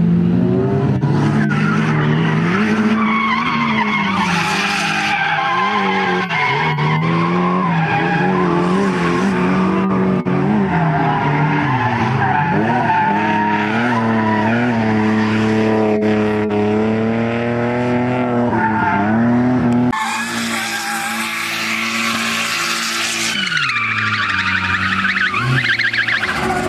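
Drift cars sliding sideways, their engines revving hard with the pitch rising and falling, and their rear tyres squealing and skidding. The sound changes abruptly about twenty seconds in, at a cut to another car.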